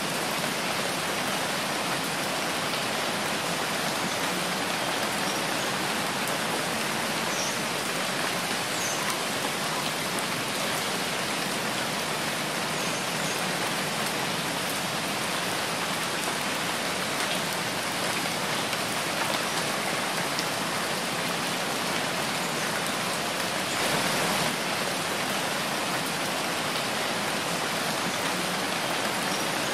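Steady rain falling: an even hiss with a few faint drop ticks, briefly heavier about four-fifths of the way through.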